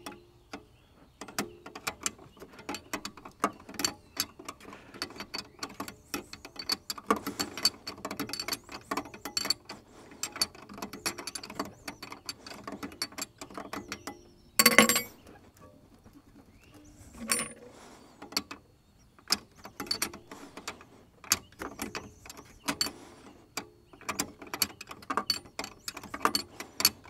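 Ratcheting wrench clicking in quick runs while a brake line flare nut is turned down into a brake master cylinder. A single louder metallic knock comes about halfway through.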